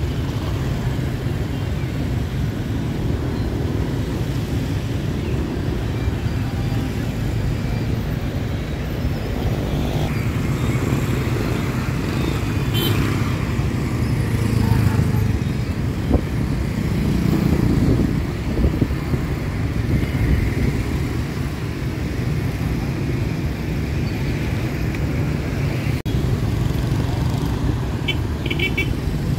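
Steady street traffic noise, mostly motorbikes running by, with no letup.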